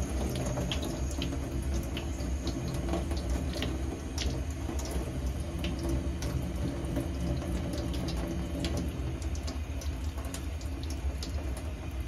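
Kitchen tap running into a stainless steel sink and over clumps of dried moss being rinsed and squeezed by hand to rehydrate them, with scattered small drips and splashes.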